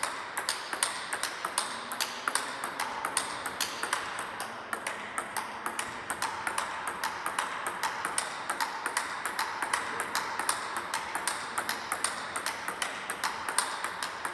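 Table tennis ball being struck with forehand drives and bouncing on the table: a quick, even run of sharp clicks, several a second, over a steady hiss.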